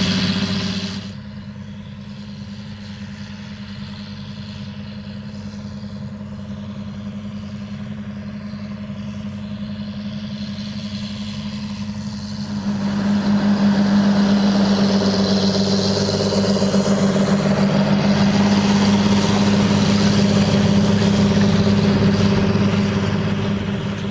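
John Deere 8530 tractor's six-cylinder diesel engine running steadily under load while pulling a soil cultivator. The sound drops suddenly about a second in and builds slowly. About twelve seconds in it turns much louder and fuller, with more rattle and rush of the working implement mixed in.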